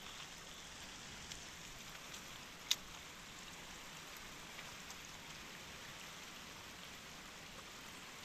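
Shallow river running over stones: a steady hiss of moving water, with one sharp click about a third of the way in.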